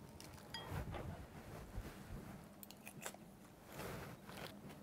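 Faint crunching of people chewing salad with crisp romaine and croutons, with a few light clicks of forks against bowls.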